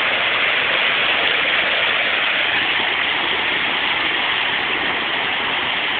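Fast-moving floodwater rushing past a bridge, a steady, even rush of water high enough to reach the top of the railing.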